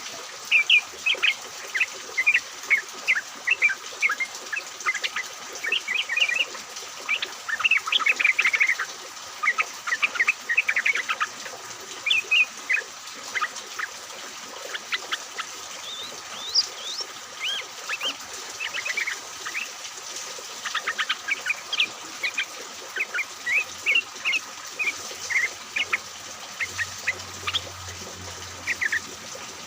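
Several yellow-vented bulbuls (trucukan) calling together, a busy stream of short, bubbly chirping notes overlapping throughout.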